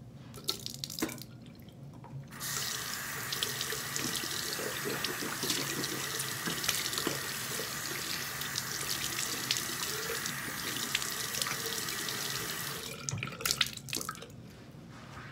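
Bathroom sink tap running steadily into the basin for about ten seconds, turned on about two seconds in and shut off near the end, with a few clicks and knocks before and after.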